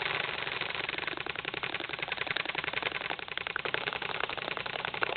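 Airsoft guns firing on full auto, a fast unbroken clatter of shots.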